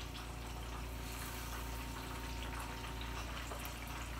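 Breaded zucchini sticks frying in hot oil in a pan, a steady sizzle with fine crackles, the oil at medium-high heat.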